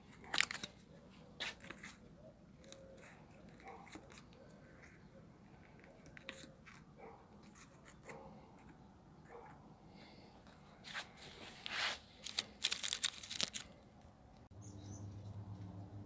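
Stiff paper cards being handled and pushed into the gap between an alloy wheel's rim and tyre: scattered short rustles and scrapes, with a quick run of them late on. Near the end the sound cuts to a steady low hum.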